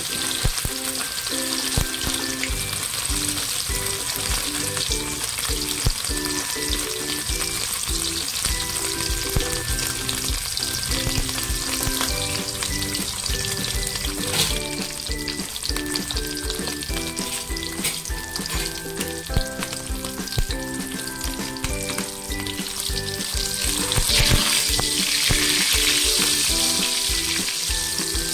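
Silverfish omelette frying in shallow hot oil in a pan, a steady sizzle with small clicks of a spatula against the pan. The sizzle grows louder near the end as the spatula works under the omelette.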